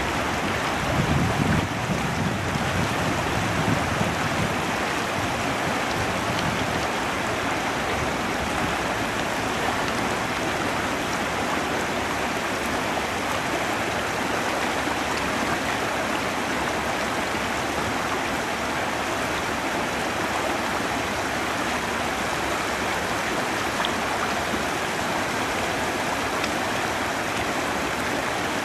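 Steady rush of water, an even hiss with no pitch, with a few brief low rumbles in the first few seconds.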